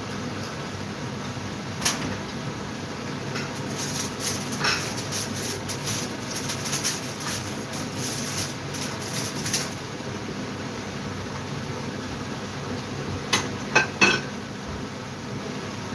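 Kitchen extractor fan running steadily under a spell of clattering and rustling as kitchen items are handled. Near the end come three sharp knocks as an upper cupboard door is opened.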